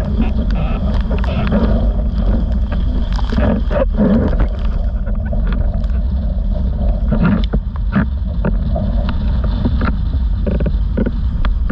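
Windsurf board planing fast over choppy water: a heavy rumble of wind on the rig-mounted camera's microphone mixed with the hiss of spray, broken by irregular slaps as the board hits the chop.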